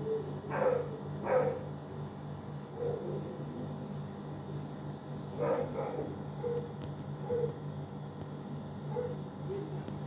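A dog barking: two barks about a second apart near the start, two more around the middle, then fainter ones. Underneath is a steady, rapid high chirping like a cricket, and a steady low hum.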